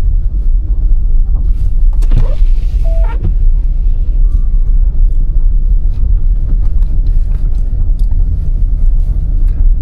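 Steady low rumble of a van driving: engine and road noise heard from inside the cab.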